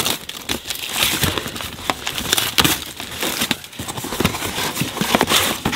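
Packing tape being sliced with scissors and a cardboard box being torn open by hand: irregular crackling, rustling and ripping of tape and cardboard.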